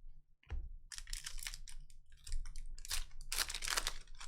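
Plastic card packaging crinkling and rustling in irregular bursts as trading cards are handled, loudest about a second in and again near the end.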